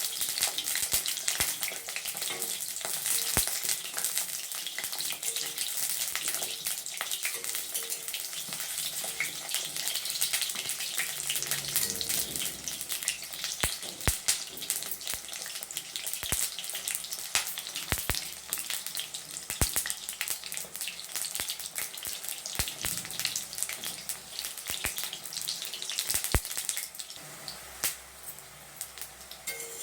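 Brinjal pieces frying in hot mustard oil in a kadhai: steady sizzling and crackling with frequent sharp pops and clicks, easing off somewhat near the end.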